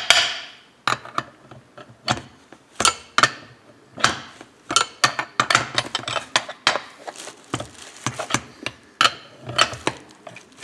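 Steel combination wrenches clinking and clicking irregularly against each other and against the bolt on a chainsaw crankshaft end, as the crankshaft is worked into the crankcase. The sharpest clank comes right at the start.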